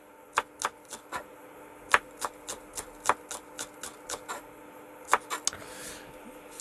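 Small kitchen knife slicing a green onion on a wooden cutting board: quick knocks of the blade through the onion onto the board, about three to four a second, in short runs with brief pauses.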